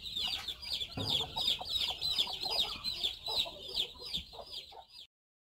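Newly hatched chicks peeping in quick succession, several high peeps a second, over the soft low clucking of the brooding hen. The sound cuts off abruptly about five seconds in.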